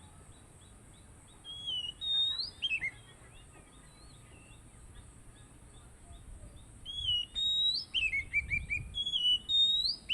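Oriental magpie-robin (kacer) singing: two phrases of loud whistled song with rising and falling notes, a short one about a second and a half in and a longer one from about seven seconds in. A faint, evenly repeated high chirp runs underneath.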